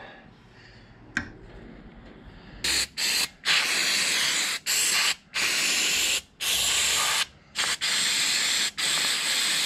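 Aerosol spray can sprayed onto metal hub parts in a run of about nine short hissing bursts, starting about three seconds in. A single light click comes about a second in.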